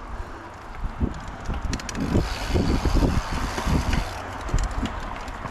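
Mountain bike rolling over a dirt trail: tyre rumble with quick rattles and knocks over bumps, busier from about two seconds in, and wind noise on the microphone.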